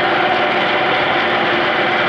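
Clausing Colchester 8031 engine lathe running under power: a steady mechanical hum with several constant tones over a wash of machine noise.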